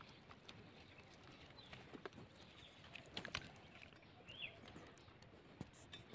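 Near silence with faint small clicks and rustles of fingers plucking feathers from raw chicken skin, and one short high bird chirp about four seconds in.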